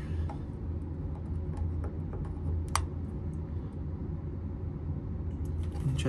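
Faint scattered clicks and taps of a flat-head screwdriver turning the plastic temperature dial of an electric water heater's thermostat, with one sharper click near the middle, over a steady low hum.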